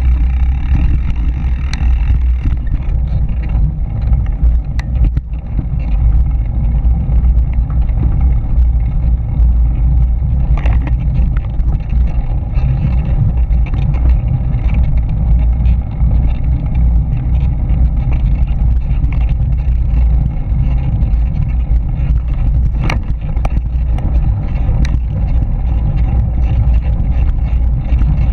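Steady low rumble of wind and trail vibration on a mountain bike's action camera rolling over a dirt trail, with a few sharp knocks from bumps.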